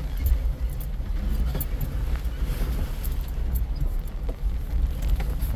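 A four-wheel-drive vehicle driving on a dirt off-road trail: a steady low engine and drivetrain rumble with scattered light rattles and clicks from loose parts.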